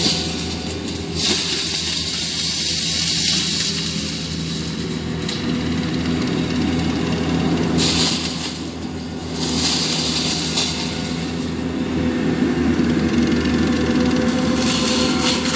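ASV RT120 compact track loader's diesel engine running under load, driving a Prinoth M450s forestry mulcher head with a steady drone, while a high rushing hiss swells and fades several times as the spinning head works through brush.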